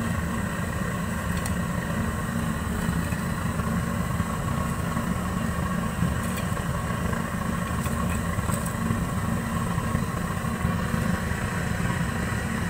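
Steady low roar of a gas stove burner running on high flame, with a few faint clinks.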